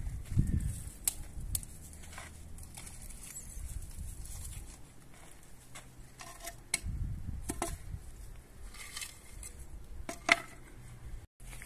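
Scattered light metallic clinks and clicks from a rusty metal mesh cage being handled, with a few dull low knocks; the sharpest click comes near the end.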